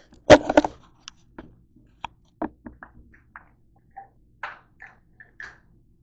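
Handling knocks as the camera is set down on a hard counter: a loud clatter of several knocks close together, followed by a string of lighter taps and clicks and a few short rustles as hands move about nearby.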